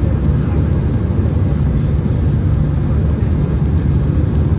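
Steady low rumble inside the cabin of an Airbus A319-131 in flight: the noise of its IAE V2500 engines and the airflow over the fuselage.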